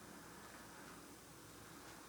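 Near silence: a faint steady hiss with a faint tick near the end, the quiet crackle of a burning candle wick.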